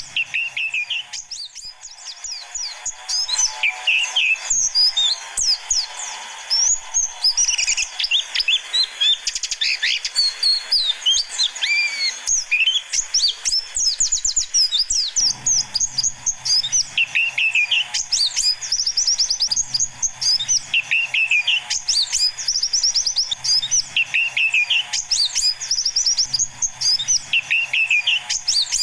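Pleci (white-eye) song: fast, high-pitched twittering chirps and trills, used as a lure call for wild white-eyes. From about halfway, a short phrase repeats roughly every two seconds.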